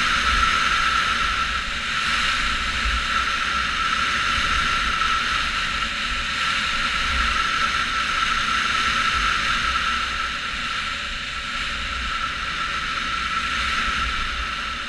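Skis sliding over groomed snow at speed with wind buffeting the camera's microphone: a steady hiss with gusty low rumble, and a thin steady tone underneath.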